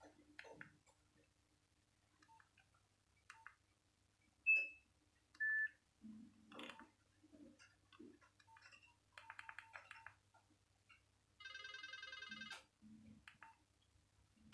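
Nokia 1202 being operated through its menus: faint keypad clicks, two short beeps about a second apart near the middle (the second lower), and brief snatches of monophonic ringtone tones that cut off after a second or so.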